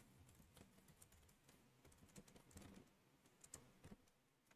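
Faint computer keyboard typing: a few scattered key clicks, mostly in the second half, over near silence.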